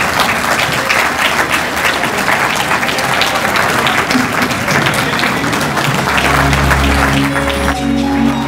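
Audience applauding. Music with repeating bass notes comes in about six seconds in, and the clapping dies away near the end.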